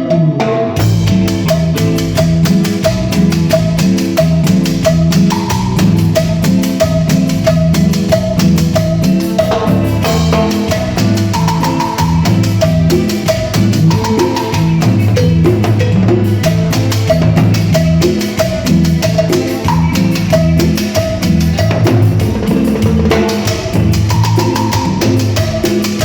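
Live band jamming an instrumental cumbia groove at a sound check: bass line, drum kit and percussion under a repeating melodic figure, with no singing.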